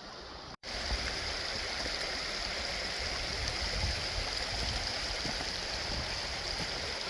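Steady rushing of a woodland stream, with an uneven low rumble underneath; the sound drops out for an instant about half a second in, then the rushing water goes on louder.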